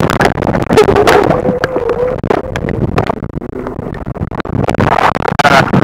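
Camera microphone pushed under shallow seawater: muffled sloshing and churning water with many small clicks and knocks as the camera is moved about.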